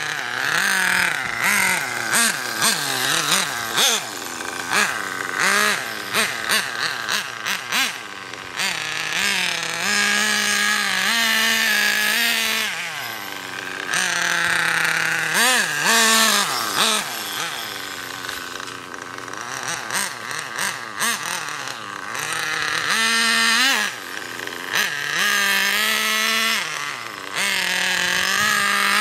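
Nitro glow engine of an OFNA Ultra LX Comp 1/8-scale RC buggy being driven and revved up and down over and over, its pitch rising and falling with each burst of throttle.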